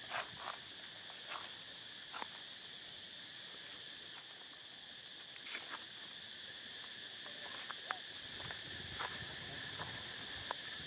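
Steady, high-pitched drone of insects, with a few short faint clicks and chirps scattered through.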